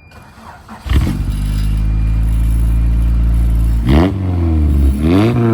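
Car engine starting about a second in and idling, then revved twice near the end. The cheap bolt-on fake turbo whistle fitted to it makes no audible whistle.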